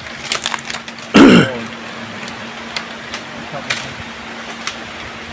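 Dry nipa palm fronds and stalks crackling with scattered snaps as a man pushes through them, with one short, loud vocal sound from him about a second in.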